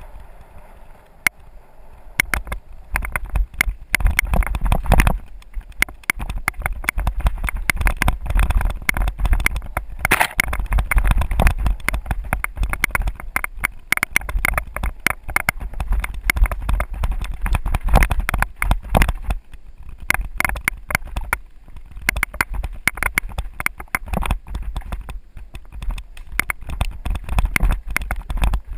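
Mountain bike rattling and clattering as it descends a rough dirt singletrack: dense, irregular knocks from the frame and parts jolting over the ground, over a constant low rumble. It eases off briefly at the start and again about three-quarters of the way through.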